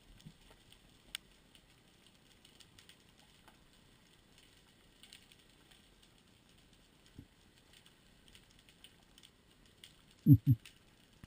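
Underwater ambience of faint, scattered crackling clicks, with two loud low thumps in quick succession near the end.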